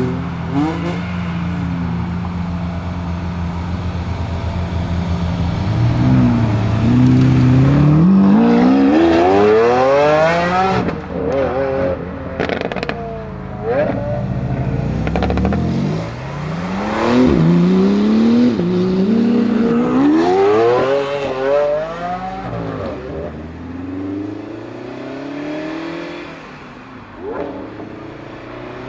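Lamborghini Aventador S Roadster's naturally aspirated 6.5-litre V12 running steadily at first. About six seconds in, the revs climb hard several times, each climb falling back sharply, with a few sharp crackles in between. The engine then quietens and fades.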